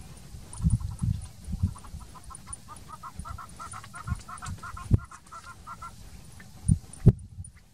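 A bird calls a rapid series of short repeated notes, about four or five a second, growing louder and then stopping about four and a half seconds in. Dull low thumps come and go throughout, the loudest two near the end.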